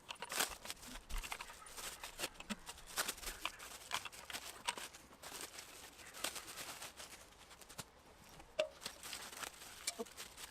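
Packaging rustling and crinkling with scattered light clicks and knocks as barbecue parts are handled and unpacked.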